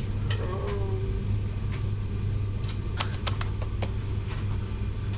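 Scattered sharp clicks and clinks of objects being handled on a workbench, with a quick cluster of clicks about three seconds in, over a steady low hum.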